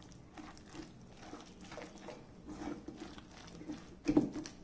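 Silicone spatula stirring chopped boiled cauliflower and white sauce in a stainless steel bowl: soft, irregular wet stirring strokes, with a louder stroke about four seconds in.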